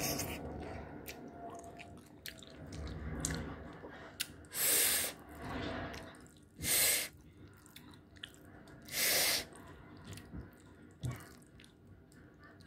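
A person slurping instant ramen noodles: three loud slurps, each about half a second long and a couple of seconds apart, with small clicks between.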